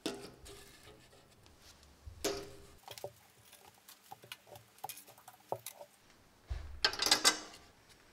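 First aid supplies being set down on the glass shelves of a wall cabinet: a series of light knocks and clinks, with a louder burst of clattering near the end.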